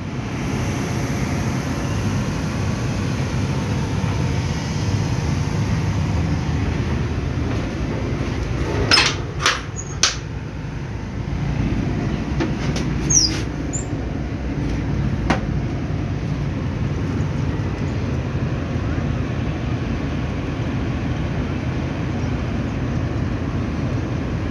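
Passenger train running along the track, a steady low rumble of the coach and its wheels heard from an open door, with a few sharp knocks about nine to ten seconds in.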